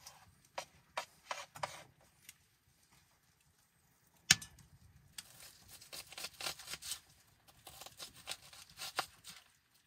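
Knife cutting vegetables on a wooden chopping board: scattered taps and clicks, one sharp knock about four seconds in, then runs of quick taps.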